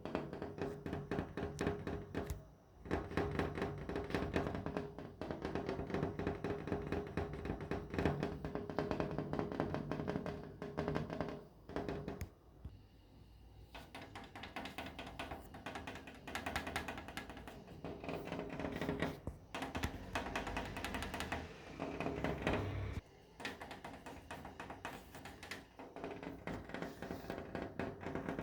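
Rapid tapping and knocking on a window pane, many quick taps in a dense run, with a few short pauses.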